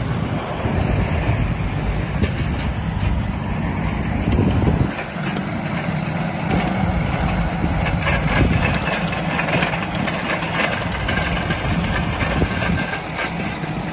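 Doosan DX10Z micro excavator's small diesel engine running as the machine tracks and turns on rubber tracks over concrete, with a brief louder surge about four and a half seconds in. Light clicking from the running gear through the second half.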